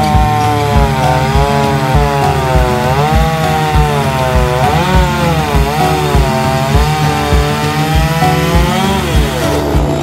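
Chainsaw running under load as it cuts through a coconut palm trunk, its engine pitch dipping and rising as the chain bites into the wood and eases off, falling away near the end. A steady low beat of music plays underneath.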